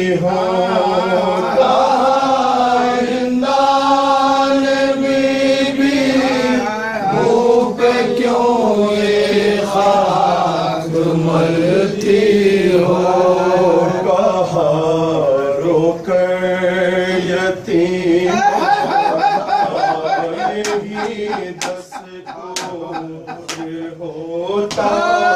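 Noha, a Shia mourning lament, chanted unaccompanied by male voices in long, wavering held lines. About twenty seconds in the chant drops away and a rhythmic run of sharp slaps, two or three a second, takes over: chest-beating (matam) kept in time with the lament.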